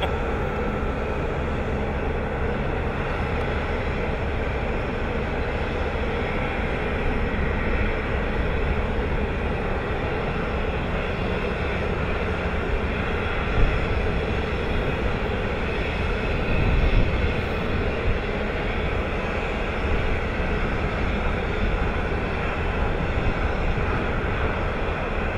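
Steady, even rumble of bulk-handling machinery: the conveyors of an iron ore stacker-reclaimer and ship loader running. There is a single sharp knock about halfway through and a brief low swell a few seconds after it.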